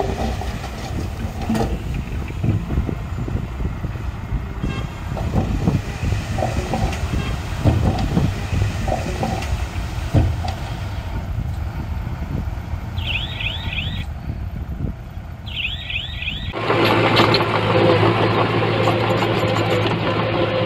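Diesel engine of earthmoving machinery working, rumbling with irregular knocks and clanks, and two brief clusters of high squeaks near the middle. About sixteen seconds in, the sound changes abruptly to a steadier, louder engine hum.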